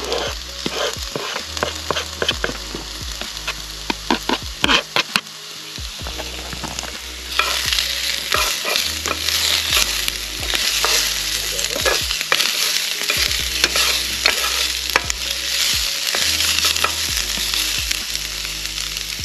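Food sizzling as it fries in a pan over a campfire, with a spoon knocking and scraping against the pan in the first few seconds. The sizzle grows louder about seven seconds in and stays steady.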